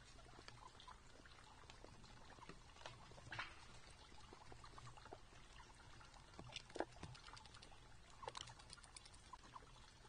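Faint, scattered clicks and crunches of black-tailed deer, a doe and her fawns, feeding from feeders on wood-chip ground, with a few sharper clicks and a short cluster near the end.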